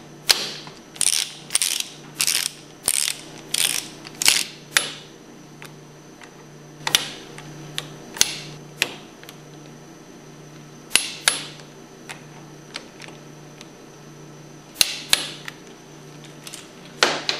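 Ratchet wrench with a hex bit tightening the Allen bolts on a hydraulic motor's end plate: a quick run of about eight ratchet strokes in the first five seconds, then a few scattered strokes as each bolt is brought down.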